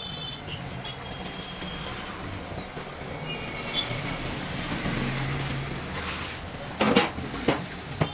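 Liquid fat poured from a plastic jug into a large empty steel kadai, splashing and pooling against the metal, over a steady low background hum. Two sharp knocks about seven seconds in.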